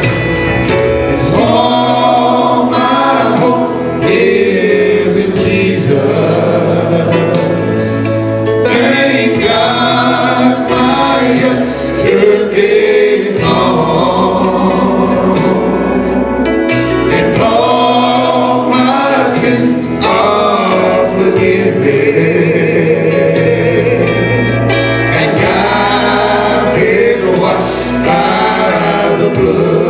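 Male vocal group singing a gospel song in harmony through microphones, with sustained bass notes underneath.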